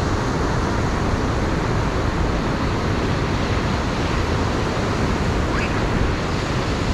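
Ocean surf breaking on a beach: a steady wash of noise with a heavy low rumble, with wind on the microphone.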